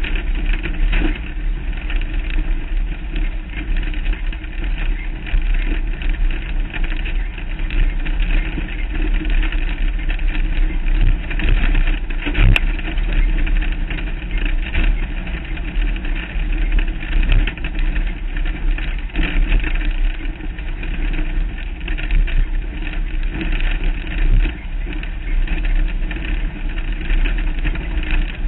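Off-road race vehicle driving a rough dirt trail, heard from a camera on its hood: the engine runs under a constant, fluttering din of rattle and rumble. A single sharp click near the middle.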